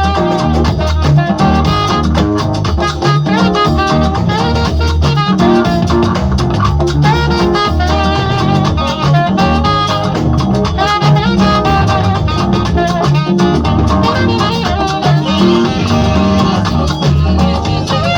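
Upbeat music with guitar, bass and drums at a steady beat, in a Latin dance style.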